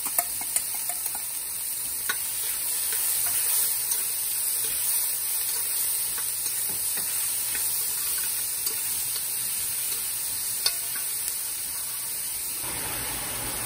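Tomatoes, pimentos, hot pepper, onion, green seasoning and garlic sizzling steadily in hot vegetable oil in a large metal pot while being stirred, the spoon clicking and scraping against the pot a few times.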